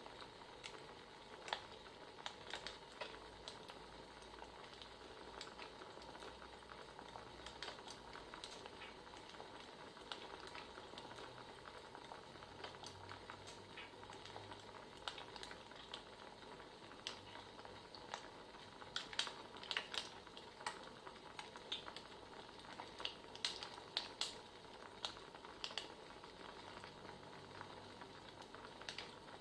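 Crackling wood fire: a steady faint hiss with irregular pops and snaps, which bunch together a couple of times in the second half.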